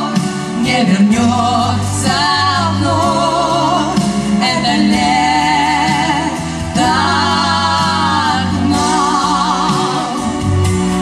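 Two women singing a Russian song together with strong vibrato, in long held phrases over a steady instrumental accompaniment.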